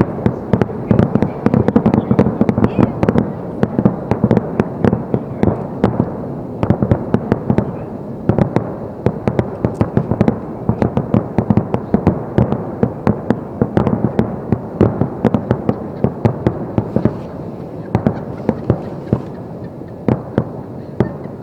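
Aerial firework shells bursting in a rapid finale barrage: many sharp bangs a second over a continuous rumble. The bangs thin out near the end.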